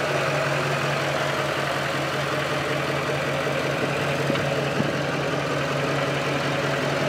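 Duramax V8 turbodiesel pickup engine idling steadily, with no revving.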